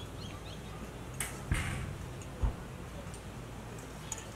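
Feta being crumbled and shaken out of its plastic tub into a plastic mixing bowl: a brief rustle followed by two soft knocks about a second apart.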